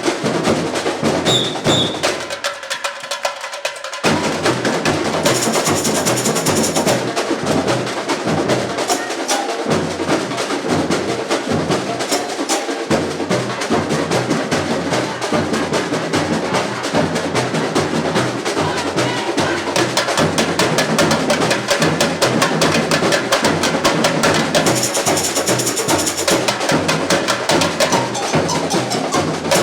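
Samba bateria drumming a fast samba groove of bass drums, snare drums and small hand percussion. About two seconds in the bass drums drop out in a break, and the whole bateria comes back in at full power about four seconds in.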